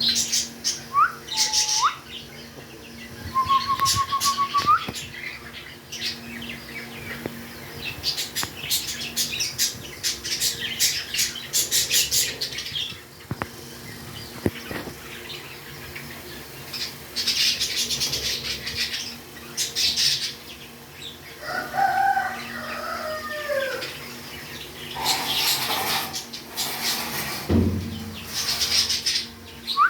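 Pet parrot whistling and calling: short whistled glides and a quick run of rising whistle notes near the start, then repeated rasping, noisy bursts, with a wavering multi-tone call about two-thirds of the way through and a single low thump near the end.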